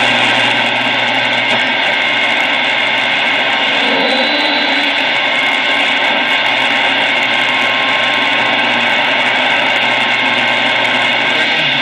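Steady radio static hiss from the speaker of a 1946 Sonora AM tube radio, tuned between stations, with a faint low hum underneath.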